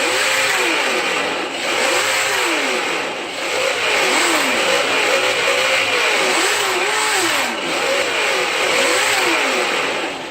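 Two RC-truck engine sound simulators, a Sense ESS-ONE and a Traxxas On Board Audio unit, playing simulated engine revving together through their small speakers: repeated, overlapping rises and falls in pitch every second or two, over a steady hiss.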